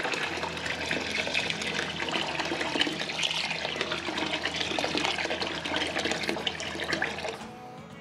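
Water poured in a steady stream into a pot of raw rice, splashing and gurgling as it fills, stopping a little before the end.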